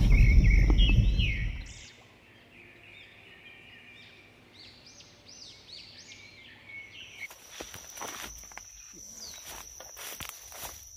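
Low rumble of a vehicle driving a dirt track, heard from inside the cab, fading out after about two seconds. Then a bird calling with a run of short repeated chirps. From about seven seconds in, there is crackling and footsteps in dry undergrowth over a steady high tone.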